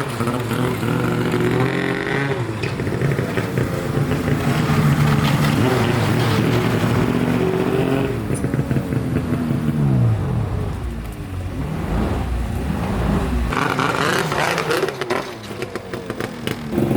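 Snowmobile engine running under way, its pitch rising and falling as the throttle is worked; it winds down about ten seconds in, then picks back up.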